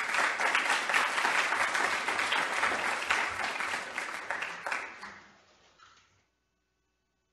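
Audience applauding, the clapping thinning out and dying away about five to six seconds in.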